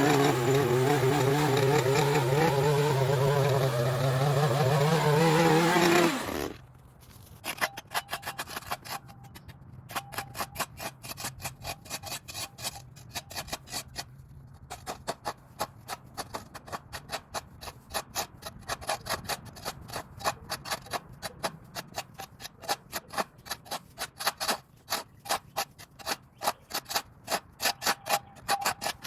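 A small engine running steadily, cutting off about six seconds in. Then a long run of short scraping strokes, about one to two a second, from a hand tool working the ground.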